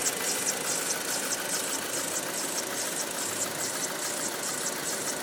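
Audi 2.0 TFSI turbocharged four-cylinder petrol engine idling steadily, with an even, rapid clacking of about four clicks a second. The owner finds the engine's noise strange, above all a second sound beside the clacking.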